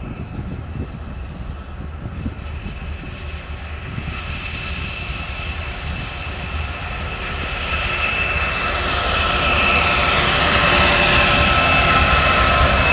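Canadian Pacific freight train's diesel locomotives approaching and passing close by: the engines' rumble and a steady high whine grow louder, peaking as the lead units go past near the end.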